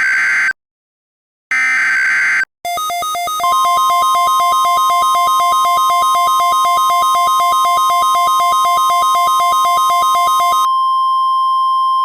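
The last two bursts of an Emergency Alert System SAME header, electronic data screeches each just under a second long. Then a rapidly pulsing electronic alert tone starts, and a steady weather-radio warning tone near 1 kHz joins about a second later. The pulsing stops near the end while the steady tone keeps sounding.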